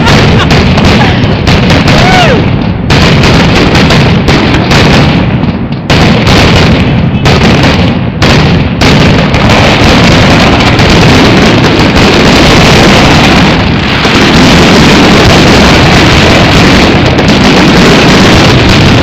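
Aerial fireworks going off in rapid succession, recorded so loud the phone's microphone is overloaded. Separate bangs and crackles in the first half merge into a continuous, unbroken barrage about halfway through, with a couple of whistling shells near the start.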